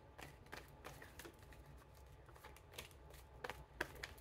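Tarot deck being shuffled by hand: soft, irregular flicks and riffles of the cards, with a few sharper card snaps near the end.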